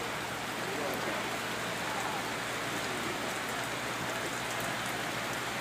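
Rain falling steadily: an even hiss with scattered faint ticks of drops.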